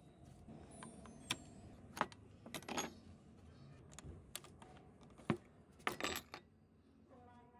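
Screwdrivers clicking, tapping and rattling against the metal shafts and linkages under an old sewing machine during disassembly: scattered sharp clicks with two short bursts of rattling clinks, about two and a half seconds in and again around six seconds.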